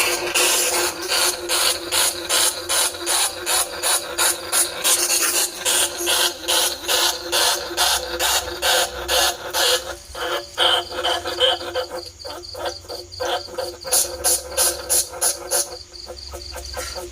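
Rat lure call: rapid, evenly repeated squeaks meant to mimic a greater bandicoot rat, about four a second. After about ten seconds they turn sparser and quieter, with a few short high chirps.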